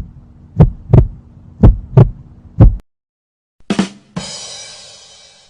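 Heartbeat sound effect: paired low thumps about once a second, stopping near the middle. After a short gap, a sharp hit and then a long hissing crash that slowly fades.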